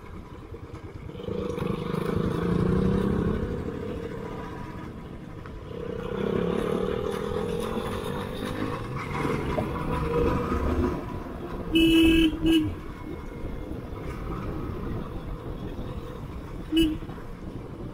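Royal Enfield 500 single-cylinder engine with an aftermarket exhaust thumping along on the road; its note swells twice. A vehicle horn honks twice in quick succession about two-thirds of the way through, and once more briefly near the end.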